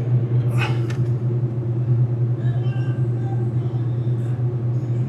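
Steady low hum of a machine running in the background, with a brief rustle or scrape a little under a second in.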